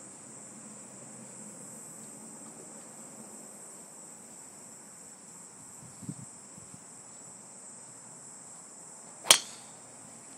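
A single sharp, loud crack of a golf club striking the ball off the tee about nine seconds in, over a steady high buzz of insects.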